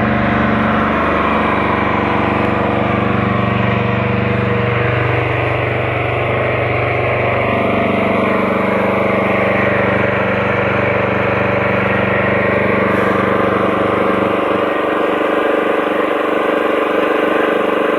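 Small engine running steadily while it drives a water pump rigged up as a grass sprayer; its low hum thins out about fourteen seconds in.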